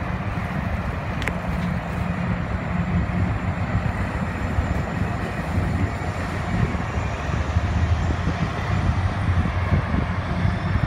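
Steady low rumble of a tugboat's diesel engine pushing a barge across the water, mixed with wind buffeting the microphone.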